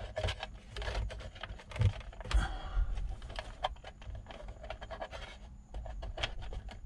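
Dash cam cable being handled and pushed into the headliner and trim around the rearview mirror: irregular light clicks, taps and scratches of wire and plastic, with a couple of louder knocks about two seconds in.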